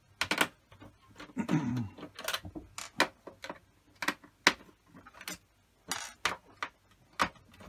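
Irregular sharp clicks and light metallic taps from a screwdriver and small screws as screws are taken out of a PlayStation 4's internals.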